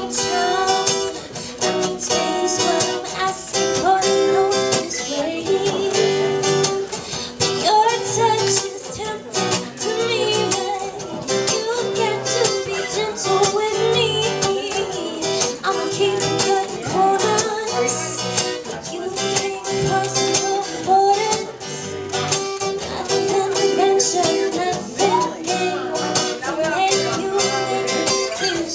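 Acoustic guitar strummed steadily, with a woman singing the melody over it.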